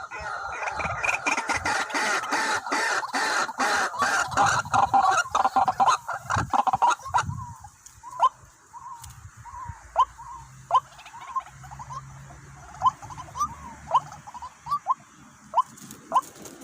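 White-breasted waterhens calling: a dense stretch of overlapping calls for about the first half, then short separate calls roughly once a second, with scattered sharp clicks.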